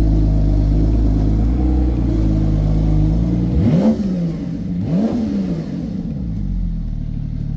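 Porsche 911 Turbo S twin-turbo flat-six idling through a Fabspeed aftermarket exhaust, blipped twice in quick succession about halfway through, the pitch rising and falling each time before settling back to idle.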